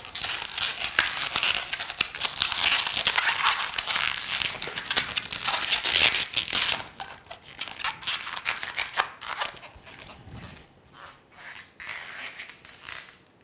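Latex twisting balloons rubbing and twisting against each other as a black 260 balloon's tail is wrapped into the pinch twists of a gray 160; busy handling for the first half or so, then sparser and quieter.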